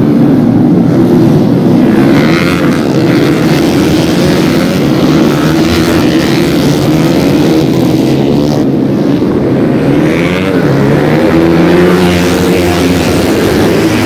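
Loud engines of several racing underbone motorcycles running hard together, their overlapping notes rising and falling as they brake, shift and accelerate through the corners.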